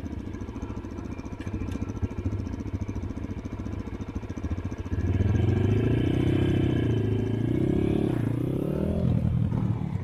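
Dirt bike engine running at a low, steady speed, then about halfway through getting louder and revving up and down a few times.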